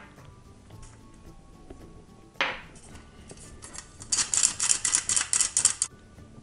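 Metal hand-held flour sifter being worked over a stainless steel bowl: a fast run of clicks, about six a second, for about two seconds near the end, after a single tap about two and a half seconds in. Faint background music underneath.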